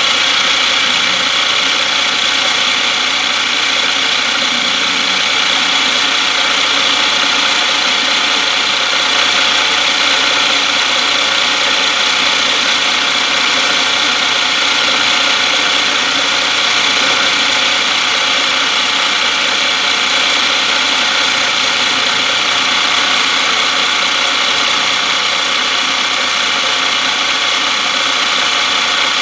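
Milling machine running steadily, its motor and spindle giving an even whine with a strong high tone, while graduation lines are engraved around the edge of a small metal disc.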